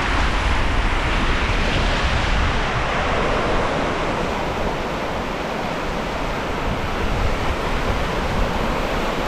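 Small ocean waves breaking and washing in over shallow sand, a steady rushing wash, with a low rumble of wind on the microphone.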